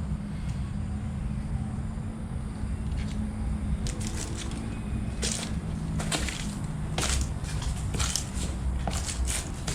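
Footsteps on a debris-strewn floor, with irregular short clicks and knocks that come more often from about four seconds in, over a steady low rumble.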